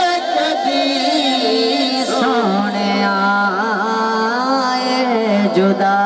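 Male voice singing a Punjabi devotional kalam through a microphone and PA, in long wavering melismatic notes over steady held instrumental accompaniment.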